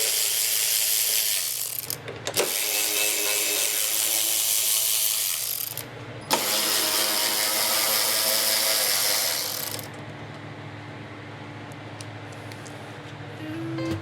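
Cordless power ratchet spinning out the fender bolts in three runs of about three and a half seconds each, with short pauses between them. It goes quiet about ten seconds in.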